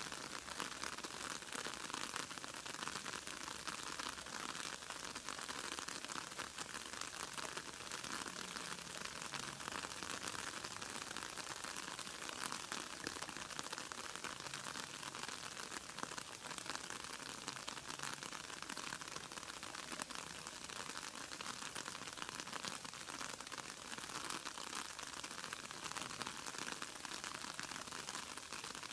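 Steady outdoor ambience in a garden: an even hiss with fine crackling throughout, with no distinct events.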